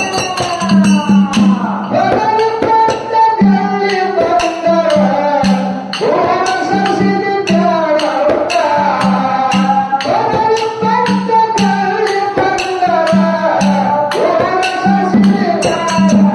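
Dollina pada, a Kannada folk devotional song: a man sings long gliding melodic phrases. A hand-played barrel drum and jingling percussion keep a steady driving beat under the voice.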